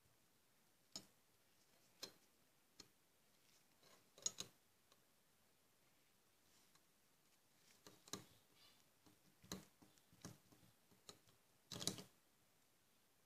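Faint, irregular clicks and short scrapes of a brush-plating pen's cloth-wrapped anode being dabbed and rubbed over a small metal piece during silver plating, with near silence between them; the longest, loudest scrape comes near the end.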